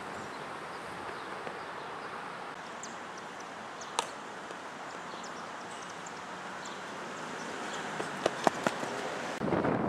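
A single sharp crack of a softball bat striking the ball about four seconds in, over steady outdoor ambience with faint high chirps. Near the end a few quick footfalls sound as the runner crosses the base close to the microphone, then a burst of wind noise on the microphone.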